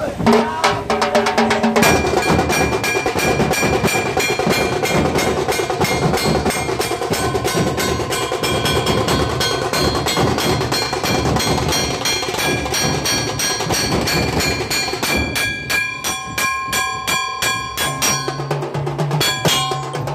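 Dhol tasha ensemble playing a fast rhythm: stick-beaten dhol barrel drums under the rapid rolling strokes of a tasha. After about fifteen seconds the strokes thin out and become sharper and more separate, and near the end a low held tone joins.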